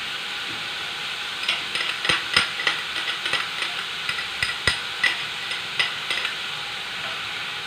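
Chopped onion and garlic sizzling in hot oil in a pan, with a steady hiss. From about a second and a half in until near the end, a spoon knocks and scrapes against the pan as they are stirred.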